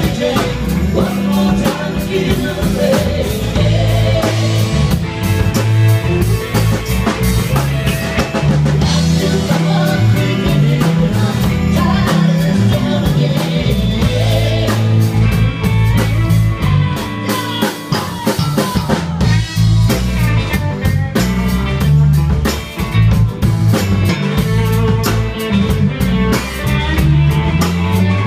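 Live rock band playing: electric guitars, electric bass and a drum kit keeping a steady beat, with no words heard.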